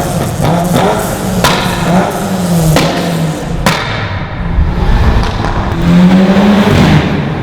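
Modified car's engine revving up and down with sharp exhaust pops and crackles, four loud cracks in the first four seconds. After that the engine note drops lower and rises again near the end.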